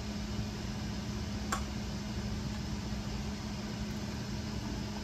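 Steady low mechanical hum of a kitchen appliance, with one light click about a second and a half in.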